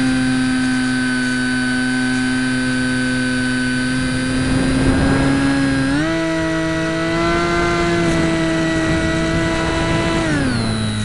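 RC plane's electric brushless motor (Cosmotech CT1811-2000) and propeller running as a steady whine, heard through the small camera mounted on the plane. The pitch steps up as the throttle is opened about six seconds in, then drops back shortly before the end.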